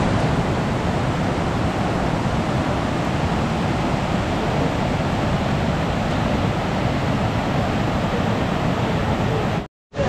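Swollen monsoon river rushing through rocky rapids: a loud, steady wash of water. It breaks off abruptly for a moment near the end.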